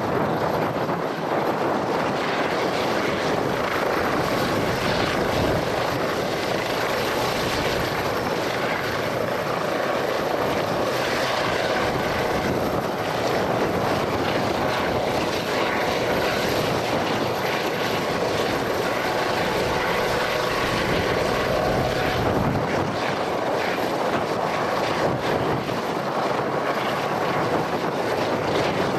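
Aircraft running steadily at close range: a loud, even rushing noise with a faint whine held through it.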